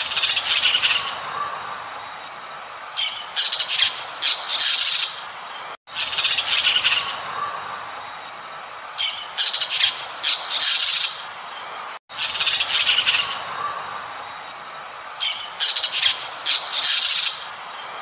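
Parrot squawks: a harsh, drawn-out screech followed by a cluster of short squawks, the same sequence repeating three times about every six seconds.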